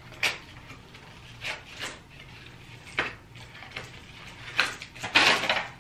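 White plastic clothes hangers clicking and clacking against each other as they are slid out of garments and stacked. A few separate sharp clacks come first, then a busier, louder rattle of hangers about five seconds in.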